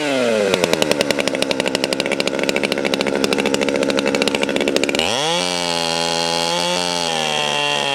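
Two-stroke chainsaw engine dropping from high revs to a lower, rapidly pulsing run, then opened up to full throttle about five seconds in and held at high revs.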